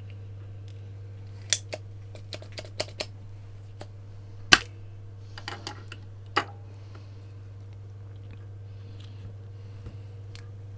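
Spring-loaded solder sucker (desoldering pump) clicking as it is cocked and fired to pull solder off a capacitor's joints, with a scatter of sharp clicks in the first six or seven seconds, the loudest about four and a half seconds in. A steady low hum runs underneath.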